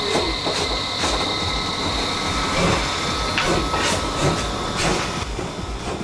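Steam locomotive D51 200 (a JNR Class D51) hissing steam, with irregular chuffs and clanks as it moves slowly past. A high, whistling edge to the hiss stops about halfway through.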